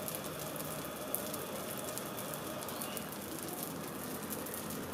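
Baghrir batter cooking in a pan over a high gas flame: a soft steady sizzle with fine crackling as bubbles rise and burst through the batter, leaving it full of holes.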